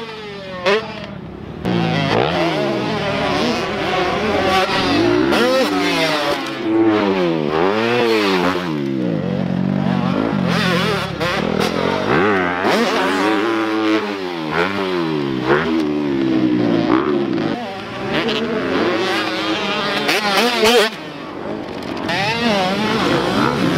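Super Mini dirt bike engine revving hard and chopping off again and again as the rider takes jumps on a supercross track, its pitch rising and falling every second or two.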